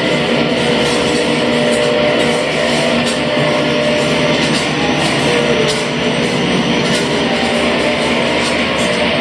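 Loud amplified noise music played live: a dense, unbroken wall of distorted sound with sustained droning tones underneath, holding steady in level.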